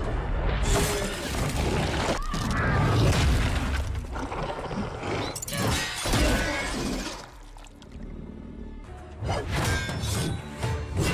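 Action-film fight soundtrack: dramatic score under a run of sharp hits and impacts, easing off briefly about two-thirds through before the hits resume.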